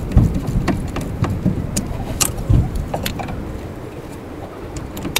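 Scattered metallic clicks and clinks of a ratchet, socket and extension on the 10 mm bolts holding the wheel cylinder to the back of a Peugeot 206's rear brake drum, as a bolt is worked loose. Dull handling knocks sound under the clicks near the start and about two and a half seconds in.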